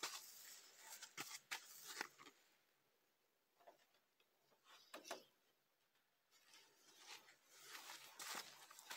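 Near silence, with a few faint, short rustles and clicks scattered through it. They come more often in the first two seconds and again near the end.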